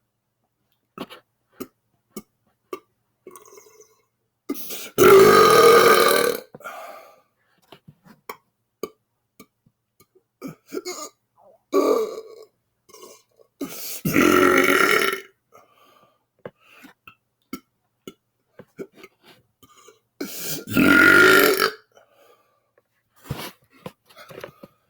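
A man belching loudly: three long belches of about a second and a half each, about 5, 14 and 21 seconds in, with a shorter, quieter belch near 12 seconds.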